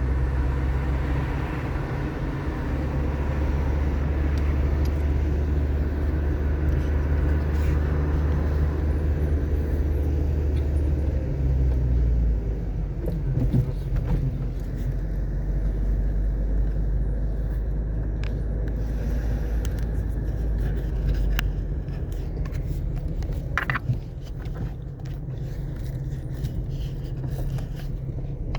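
Car driving on a rain-wet road: a steady low rumble of engine and tyres that shifts lower about twelve seconds in and again near the end. Scattered sharp ticks, more of them in the second half.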